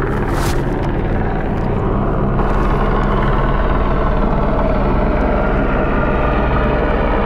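Steady low drone of a helicopter's rotor and engine, holding level with no change.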